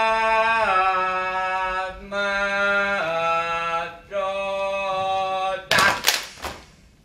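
Saman dancers' voices singing a chant in unison, holding long notes that step to a new pitch about every second. About six seconds in, the singing breaks off into a short, loud burst of percussive strokes, then stops.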